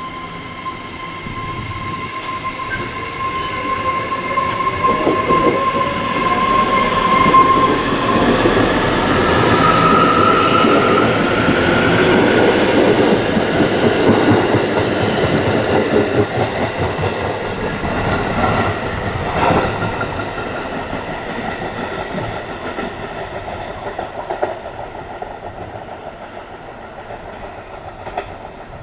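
JR Kyushu 811-series electric train starting off: a steady electrical whine while it stands. About eight seconds in, the whine rises in pitch as the train speeds up past, with wheel clatter over the rail joints. The sound eases off toward the end.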